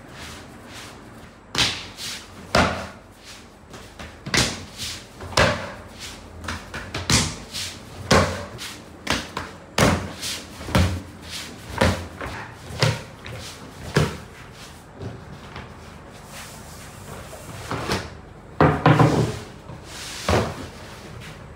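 Long wooden rolling pin, wrapped in a sheet of dough, knocking and thudding on a wooden worktable as the dough is rolled out, in an irregular run of thuds. A louder cluster of thuds comes near the end as the dough is unrolled across the table.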